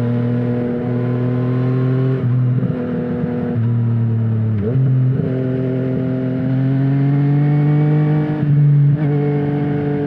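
Yamaha MT-09's 847 cc inline-three running hard through an Akrapovic full-system exhaust with no dB killer. The engine note climbs slowly in pitch and breaks off briefly every few seconds, with a short dip and recovery about four and a half seconds in.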